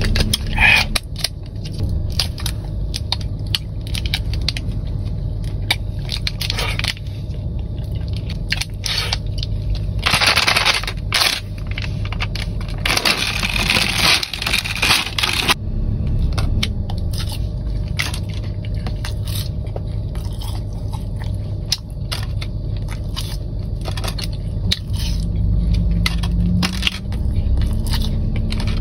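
Close-up eating sounds: crunching and chewing, with plastic snack packaging crinkling and tearing, over a steady low hum. A longer burst of rustling comes in the middle.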